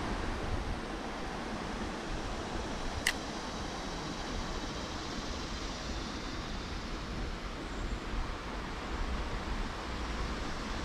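Steady outdoor background noise with no distinct source, and one sharp click about three seconds in.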